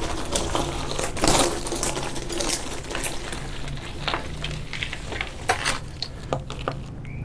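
Bicycle rolling slowly over gravel and rock, tyres crunching with many scattered clicks, knocks and rattles from the bike, the loudest knock about a second in.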